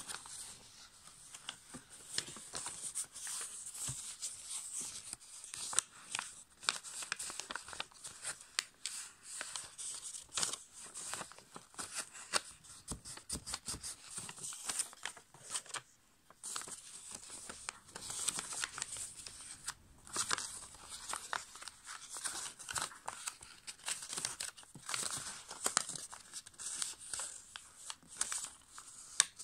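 A sheet of A5 copy paper rustling and crackling as hands fold it and press the creases flat. It makes a continuous run of crisp scrapes and small taps, with a brief pause about halfway through.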